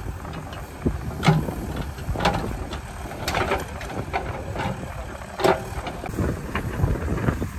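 Backhoe loader's diesel engine running steadily while its backhoe bucket digs into soil, with several sharp metallic clanks and scrapes roughly a second apart.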